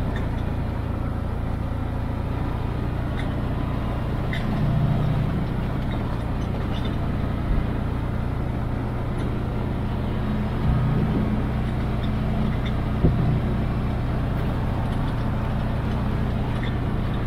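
Can-Am side-by-side UTV driving along a rough dirt track, heard from inside the open cab: a steady engine and drivetrain drone, with a few brief knocks and two short swells in the rumble.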